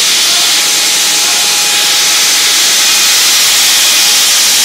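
Diamond core drilling rig running with a steady, loud hiss-like noise that does not let up.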